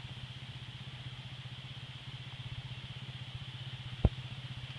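Vehicle engine idling with a steady, even pulse. A single sharp knock about four seconds in.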